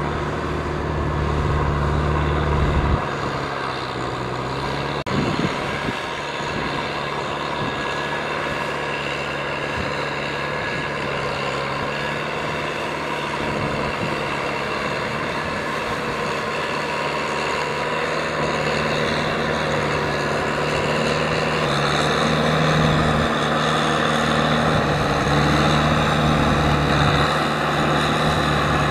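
Kubota M6040SU tractor's diesel engine running steadily under load as it drags a front blade and a rotary tiller through flooded paddy mud. Its deep engine note fades about three seconds in and grows strong again near the end, with a single brief clunk about five seconds in.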